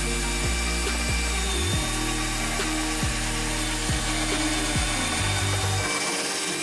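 Battery-powered cordless drill running steadily as it bores a hole into wood.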